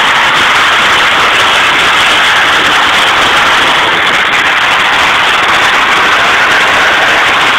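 Several demolition-derby pickup trucks running and revving their engines at once, a loud, steady din.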